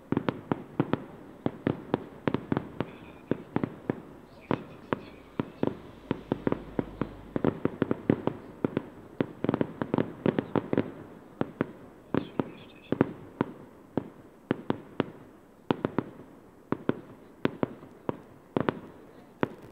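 Aerial fireworks display: shells bursting in a rapid, unbroken series of sharp bangs, several a second.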